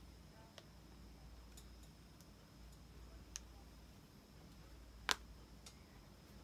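Quiet room tone with a few faint, sharp clicks from a packaged pair of socks being handled. The clearest click comes about five seconds in.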